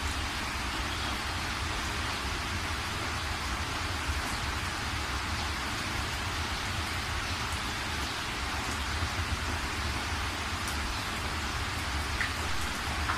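Gas stove burner running under a wok of heating oil: a steady rushing hiss with a low rumble underneath, unbroken throughout.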